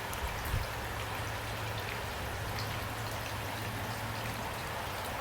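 Steady rain falling, an even hiss of many drops, with a soft low thump about half a second in.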